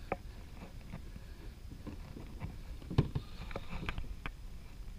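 Scattered clicks and knocks of fishing tackle being handled aboard a plastic sit-on-top kayak, one louder knock about three seconds in, over a low steady rumble of wind and water.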